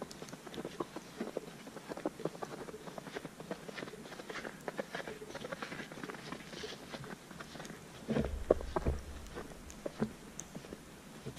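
Footsteps crunching in fresh snow, an irregular run of soft crunches. About eight seconds in there is a brief low rumble under a few louder crunches.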